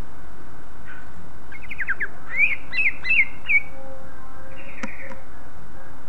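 Caged greater green leafbird (cucak ijo) singing: a quick run of sharp falling whistled notes starting about a second and a half in, then a short buzzy note, with a single click near the end, over a steady hiss.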